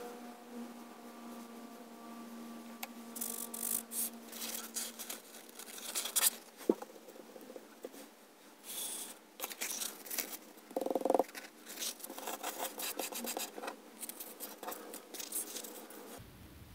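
Close-up handling of a wet index card and a paper towel during an ink water test: irregular scrapes, rustles and light taps on the desk, with a brief squeak about eleven seconds in.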